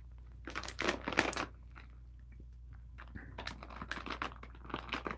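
Plastic snack bag crinkling as it is handled and pulled open, in two spells of crackling: one about half a second in, and another from about three seconds on.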